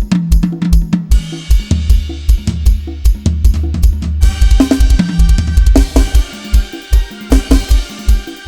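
Lam sing 'hae' groove on an Addictive Drums 2 virtual drum kit: a fast, even kick-drum pulse with snare and hi-hat over a bass line. Cymbals wash in about halfway through.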